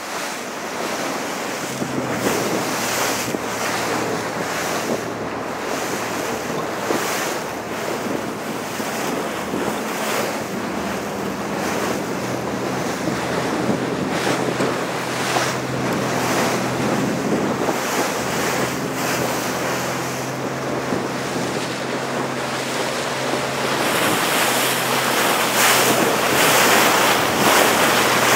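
Wind buffeting the microphone over choppy sea water slapping around an inflatable zodiac boat, with a steady low engine hum underneath from about two seconds in. The wind noise grows louder near the end.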